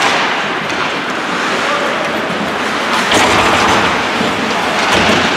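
Crowd of spectators cheering and shouting in a gym, the noise swelling about three seconds in, with a few sharp knocks.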